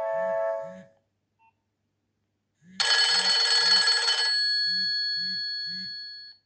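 Nokia 2760 ringtones played through the phone's small speaker: one melody fades out in the first second, and after a short silence a bright bell-like ring starts and dies away over about three seconds. Short low buzzes come in groups of three while the tones sound.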